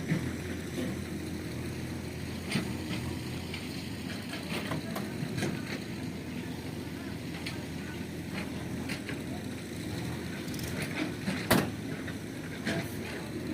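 Tata Hitachi excavator's diesel engine running steadily, with scattered sharp knocks and clacks from the stone loading, the loudest about two-thirds of the way through.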